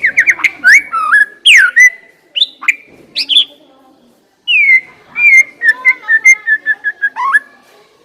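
White-rumped shama (murai batu) singing loud, clear whistled phrases that sweep up and down. After a short pause past halfway comes a fast run of short repeated notes.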